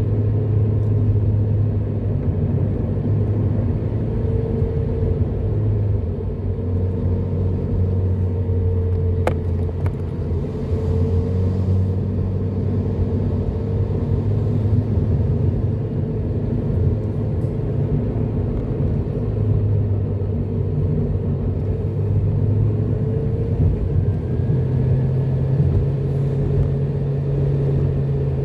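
Car engine and tyre noise heard from inside the cabin while driving: a steady low hum whose engine note shifts with speed and rises a step near the end. A brief click about nine seconds in.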